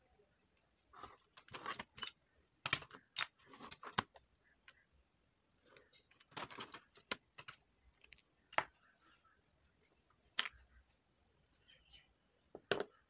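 A plastic ruler and a card strip handled on a tabletop: irregular light taps and clicks as they are picked up, laid down and moved, in two busy clusters and then a few single knocks.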